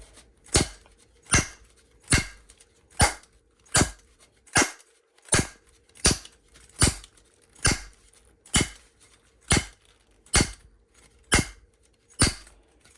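Locked Disecu padlock being struck again and again with a piece of wood, a sharp knock about every 0.8 seconds, around fifteen strikes, as a test of whether the lock will break.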